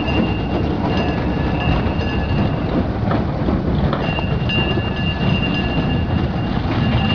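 Miniature ride-on train rumbling along its narrow-gauge track, with a thin, steady high whine that grows clearer about halfway through.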